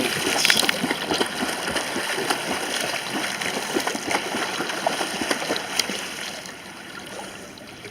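Water splashing and churning from a swimmer's arm strokes and flutter kicks, quieter near the end.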